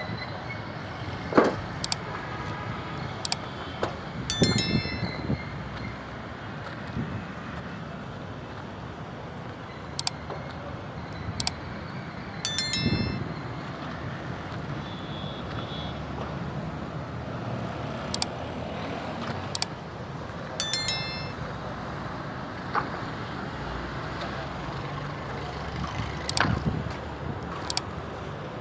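Steady background noise of traffic and wind. Over it, a sharp click and then, about three seconds later, a bright ringing chime repeat every eight seconds or so, the looped sound effect of a subscribe-button animation.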